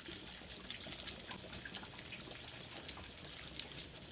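Hot water trickling and splashing steadily out of a partly unscrewed Watts mixing valve as it is drained of water before being taken apart.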